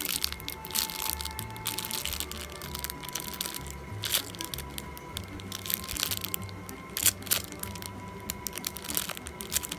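A clear plastic bag crackling and crinkling in bursts as hands squeeze the foam squishy sealed inside it, with the sharpest crackles about four and seven seconds in. Background music plays steadily underneath.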